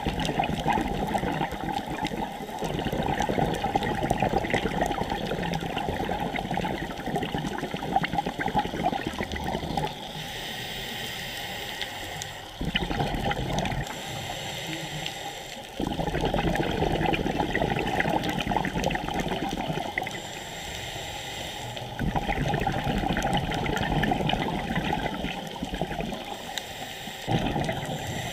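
Scuba exhaust bubbles underwater: the diver's exhaled air bubbles out in long rough bursts of several seconds, with quieter pauses of about two seconds between breaths.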